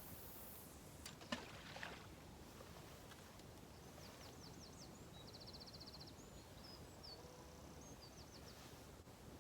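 Faint outdoor ambience with a low steady rumble. A couple of sharp clicks come about a second in, then a small bird gives high, quick chirps and a short rapid trill.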